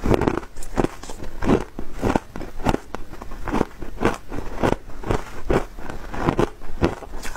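Crushed ice being chewed, a steady run of crisp crunches about two a second.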